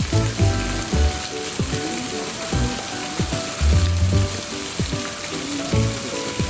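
Background music with a steady beat, over a continuous hiss of water in a polar bear's pool.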